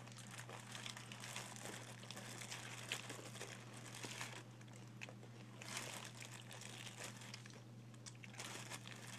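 Faint rustling and crackling noises that come and go, over a steady low hum.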